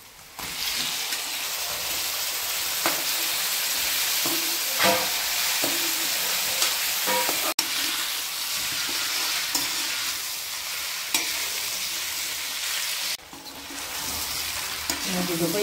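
Pork pieces hitting the hot oil in a metal kadai and sizzling loudly, starting suddenly about half a second in, while a spatula stirs and scrapes them around the pan. The sizzle eases off somewhat near the end.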